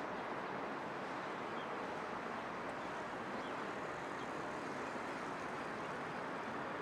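Steady city background noise: a distant traffic hum, even throughout, with no single sound standing out.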